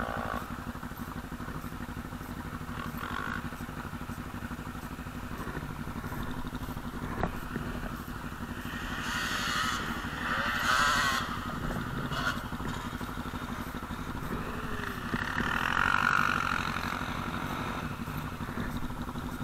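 Nearby quad engine idling steadily while dirt bikes and quads ride a sand track, their engines revving up and down. Louder revving swells twice, once a little before halfway and again near the three-quarter mark, as machines ride by.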